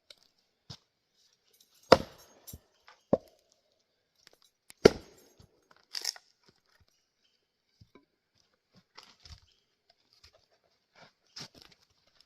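Splitting axe chopping Douglas fir: two loud sharp strikes about three seconds apart, a lighter crack between them, and smaller knocks and crackles of split wood afterwards.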